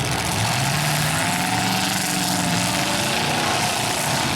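Several demolition derby cars' V8 engines running and revving together in a steady, loud din, with engine pitches wavering up and down.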